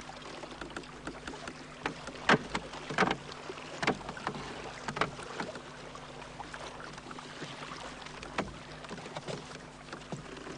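Knocks, clatters and rustling of provisions being rummaged through and unwrapped by hand, with a few sharp knocks over a steady background of a small wooden boat at sea.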